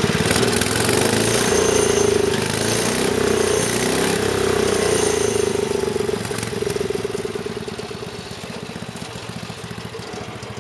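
Rebuilt wood chipper's small gasoline engine running steadily, getting quieter about two-thirds of the way through.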